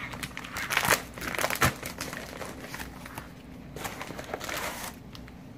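Plastic bubble mailer crinkling and rustling as it is opened and handled by hand, in irregular bursts that die down near the end.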